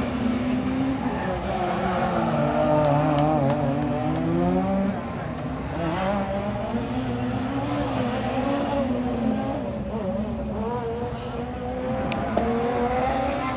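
Rally car engine revving hard on a tight special stage, its pitch rising and falling again and again with throttle and gear changes, and easing off about five seconds in.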